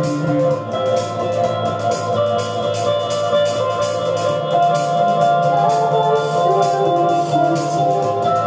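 Live rock band playing loudly: a drum kit keeps time with regular cymbal strikes under an electric bass and long held chords. About halfway in, a melody begins stepping up and down over the chords.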